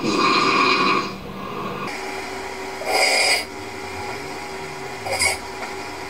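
Recording of a person snoring in sleep with the mouth taped shut, so breathing through the nose: a long loud snore at the start, another about three seconds in and a short one just after five seconds.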